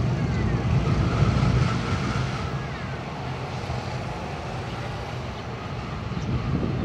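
Motorcycle engine passing and fading, over a steady low engine hum.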